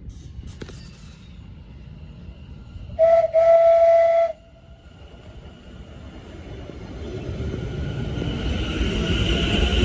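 Train horn sounding a loud, steady single-note blast of about a second and a half, with a brief break near its start, about three seconds in. Afterwards a train's running rumble grows steadily louder as it approaches.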